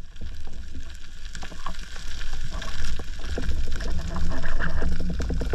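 Underwater noise around a freediver just after a speargun shot: a low rush of water with scattered clicks and knocks that grow quicker and denser toward the end.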